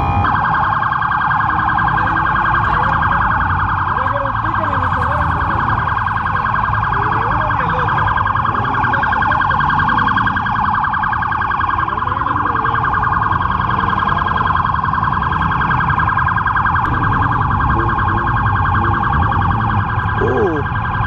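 Police car siren sounding continuously in a fast warble, over a low background rumble.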